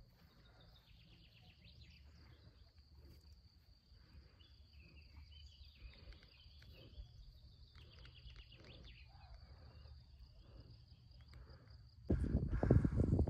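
Faint meadow ambience: a steady high insect trill over a low rumble of wind on the microphone. About twelve seconds in, a much louder rush of wind noise comes in.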